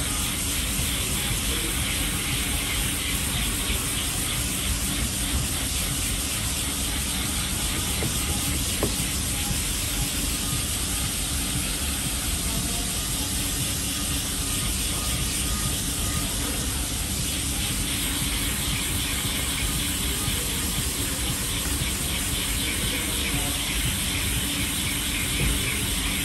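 Dual-action sander running steadily, its abrasive disc scuffing over body filler on a car door panel as it sands back guide coat with P180 paper, together with the rush of its dust-extraction hose.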